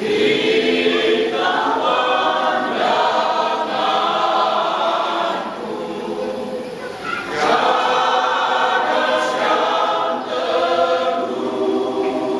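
Senior citizens' church choir singing together, coming in all at once, with a short breath between phrases about six to seven seconds in.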